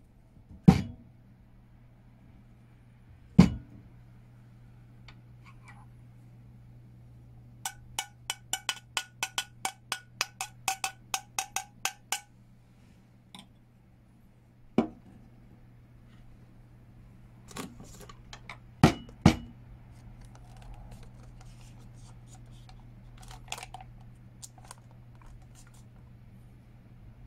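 Hard objects knocked and set down on a wooden surface: two loud knocks near the start and several more later. In the middle comes a quick run of about fifteen ringing clinks, about three or four a second, all ringing at the same pitch.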